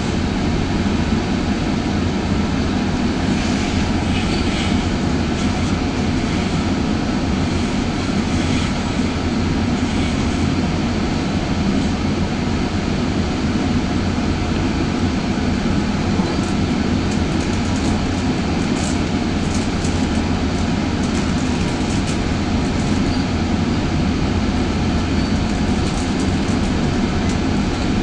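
A GO Transit bilevel passenger coach running at speed, heard from inside the cabin: a steady rumble of wheels on rail, with faint scattered clicks in the second half.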